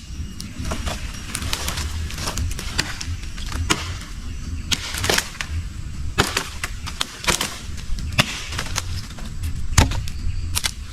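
Irregular sharp snaps and crackles with rustling, from crop plants being broken and handled during harvesting, over a low steady rumble.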